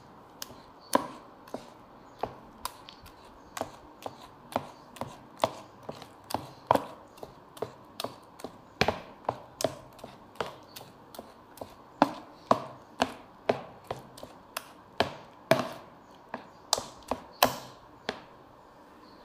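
A black plastic spoon mashing and stirring thick mashed-banana batter in a plastic tub, knocking sharply against the tub about twice a second in an uneven rhythm.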